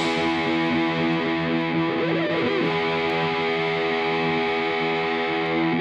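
Background music: a distorted electric guitar holding long, steady chords.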